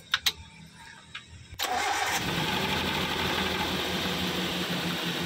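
Suzuki Carry Futura's four-cylinder petrol engine started after a couple of clicks: it catches suddenly about one and a half seconds in and settles straight into a steady idle. After the tune-up the misfire is gone and the engine runs smoothly.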